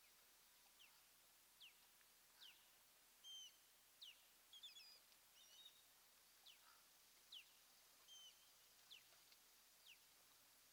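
Faint bird calls: a string of short, high, downward-slurred chirps about once a second, with a brief cluster of quicker paired notes near the middle, over a faint steady hiss.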